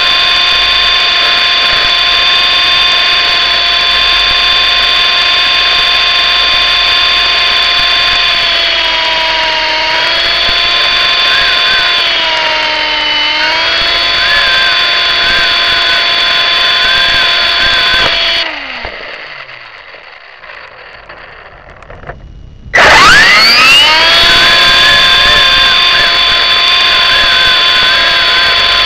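MJX F45 RC helicopter's electric motor and gear train whining steadily, heard close up from on board; the pitch sags briefly twice. About two-thirds of the way in the motor winds down with a falling pitch, stays quiet for about four seconds, then spins back up with a quick rising whine and holds steady again.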